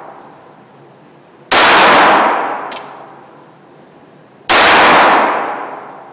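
Two shots from a Ruger SR22 .22 LR semi-automatic pistol, about three seconds apart. Each rings on for about a second in the echo of the indoor range, with a light click between them.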